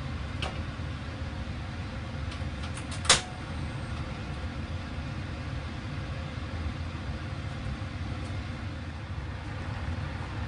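Steady low rumble of a gas stove burner heating a cast-iron pot of rice and liquid as it comes to the boil, with one sharp metallic clink about three seconds in.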